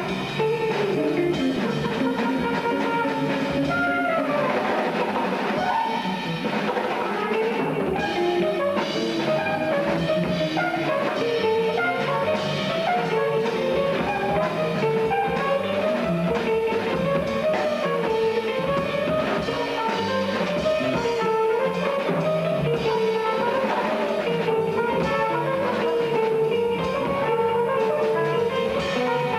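Live jazz group improvising: archtop electric guitar playing busy lines over a drum kit, with double bass.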